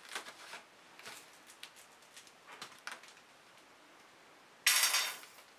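Plastic paint squeeze bottles clicking and tapping lightly as they are handled. Near the end a short, loud rush of noise lasting about half a second, as a squeeze bottle of pouring paint whose tip is clogged is worked and the paint will not come out.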